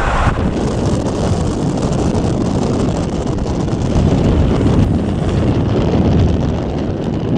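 Steady road and engine noise of a moving vehicle, with wind rumbling on the microphone.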